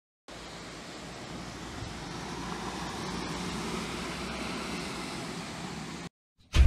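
Steady rushing noise of floodwater flowing through a flooded street, slowly growing a little louder, cut off suddenly near the end.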